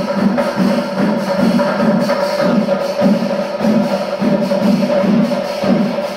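Kerala chenda melam ensemble playing the kalasam, the climax passage: massed chenda drums pound about two strong beats a second, under elathalam cymbals and a steady held pipe note.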